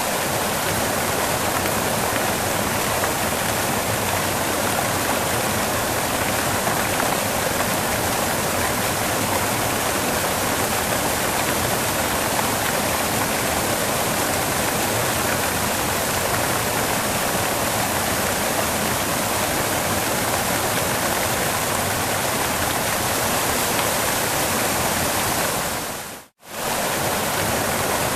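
Waterfall rushing in a steady, even roar of falling water. It fades out to a brief gap of silence about 26 seconds in and then comes straight back.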